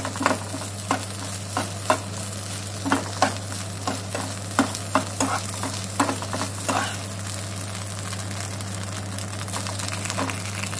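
Steel spatula scraping and tapping against a frying pan as scrambled egg is stirred, over a steady sizzle of frying. The tapping stops about seven seconds in, leaving only the sizzle.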